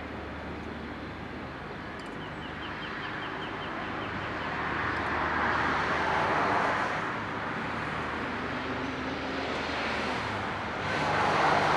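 Outdoor background noise: a passing vehicle's sound swells and fades around the middle, and a bird gives a quick run of high chirps early on.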